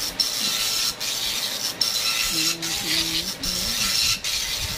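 Epson LX-310 9-pin dot-matrix printer printing its self-test page: the print head rasps across each line with a short break a little under once a second as it ends a line and feeds the paper. It prints straight through without stalling, its print head freshly cleaned.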